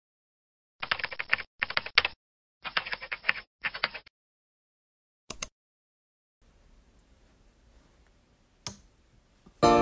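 Rapid keyboard typing in four short runs, then a single click, typical of a typing sound effect behind on-screen text. Music begins right at the end.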